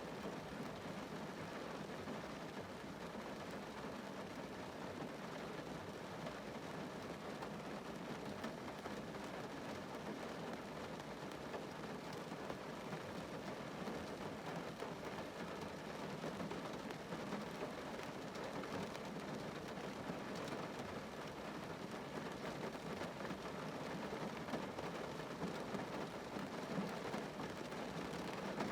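Rain falling on a car, heard from inside the cabin: a steady hiss dense with small drop hits.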